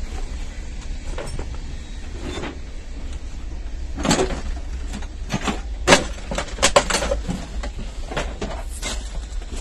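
Rummaging through boxes of old vehicle parts: scattered knocks, clunks and rustles as cardboard boxes and loose parts are moved about, busiest in the second half, over a steady low rumble.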